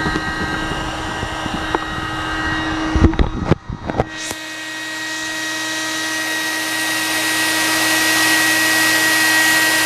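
Hair dryer blowing with a steady motor whine. Low bumps and knocks come in the first four seconds, then a brief dip about three and a half seconds in. After that the blowing runs evenly and grows slowly louder.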